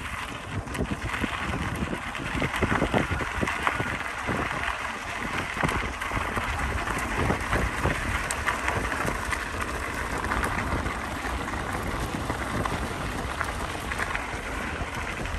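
Wind rushing over the microphone of a moving bicycle, with a steady crackling crunch of tyres rolling over a gravel trail and scattered small clicks.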